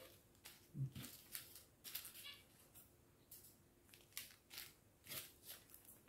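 Small plastic zip-lock bags of square diamond-painting drills crinkling faintly as they are picked up and handled, in a string of short rustles. A short low sound about a second in.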